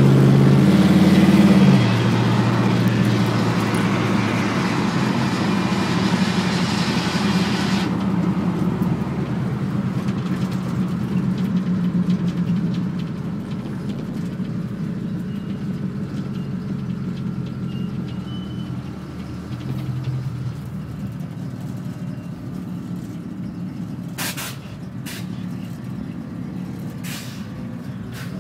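A vehicle's engine runs steadily with road noise, heard from inside the cab while driving on a highway, gradually getting quieter. A rush of wind fills the first eight seconds or so and stops abruptly; a few short bursts of noise come near the end.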